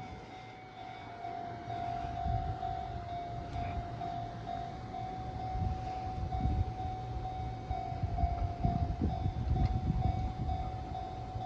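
Level-crossing warning bell ringing in a steady repeated ding, while the HC85 hybrid diesel-electric train passes over the crossing with a low rumble and wheel knocks, loudest about six to ten seconds in.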